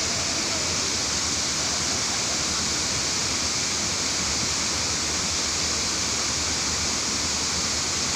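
Dudhsagar Falls, a large waterfall, rushing steadily: an even hiss of falling water with no change in level.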